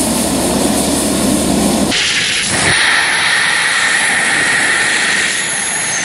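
Engines of an An-26 twin-turboprop transport plane running in flight. About two seconds in, the sound cuts to a steady rush of wind on a skydiver's helmet camera in freefall.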